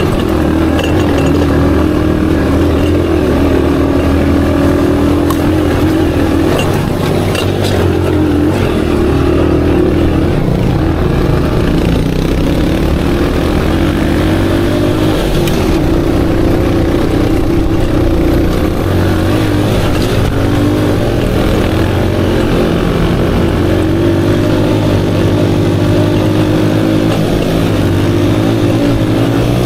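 Aveta Ranger Max cub-cross motorcycle engine running under way, its pitch rising and falling as the throttle is worked.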